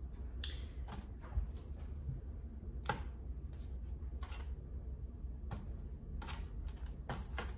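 Scattered soft taps and clicks as balls of cookie dough are picked off one aluminium sheet pan and set down on a parchment-lined half-sheet pan, over a steady low hum.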